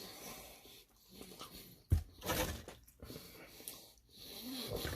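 Close-up eating sounds of chicken wings being chewed, with wet mouth and lip smacking, and a single sharp knock about two seconds in.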